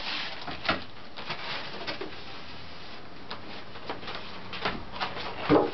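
Styrofoam packing blocks being pulled off a boxed TV, with rustling plastic wrap and light knocks. Near the end there is a short, loud squeak of foam rubbing on foam.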